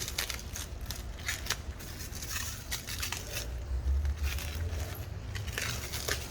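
Crinkling and rustling as the new emblem and its packaging are handled, with scattered sharp clicks over a low rumble.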